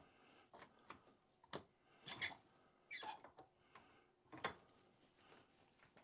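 Faint, scattered clicks and knocks of hand tools working on a stuck golf-driver adapter, with a short scrape or two between the clicks.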